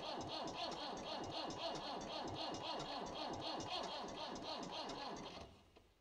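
Starter motor cranking the cold Perkins diesel of a Massey Ferguson 50E backhoe, with about four even compression beats a second. The cranking stops suddenly about five and a half seconds in without the engine catching.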